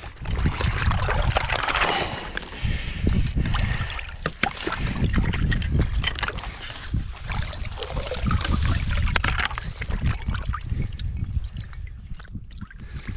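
Gloved hands sloshing and splashing in shallow, muddy water, with irregular small splashes and knocks as they feel through the mud for a submerged foothold trap.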